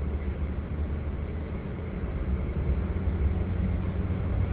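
Car driving on the road, heard from inside the cabin: a steady low engine and tyre rumble with a hiss of road noise.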